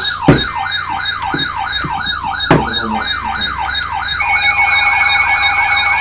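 Electronic siren-style alert sound: a pitch that sweeps downward over and over, about four times a second. About four seconds in, a steady tone joins it and the sweeps quicken.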